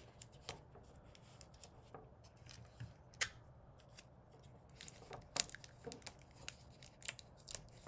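Faint crackling and clicking of paper and sticky tape as tape is pressed down over the folded tip of a rolled-paper rocket tube. The sharp crackles come in scattered bunches, busiest about five seconds in and again near the end.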